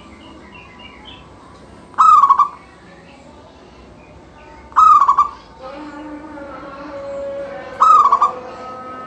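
Zebra dove (perkutut) cooing its song: three short, loud phrases about three seconds apart, each a quick arched note breaking into a fast stutter. From about halfway a fainter steady tone sits underneath.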